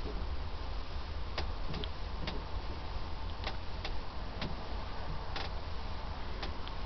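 Handheld video camera's handling noise: a steady low rumble and hiss, with about ten light clicks and ticks at irregular intervals.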